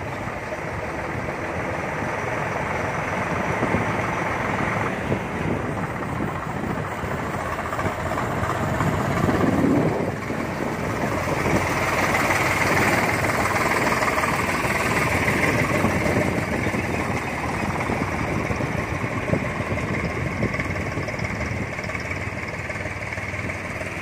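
Tractor's diesel engine running steadily as the tractor drives along a road, mixed with road noise.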